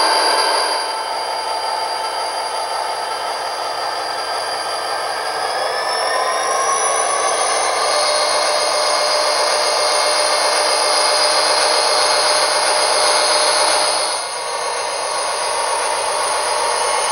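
Digital sound decoder in an HO-scale SD40-2 model playing an EMD diesel prime mover through a small speaker, thin and buzzy with no real bass. The engine sound notches up about five seconds in with a rising whine, holds, and begins to wind down near the end.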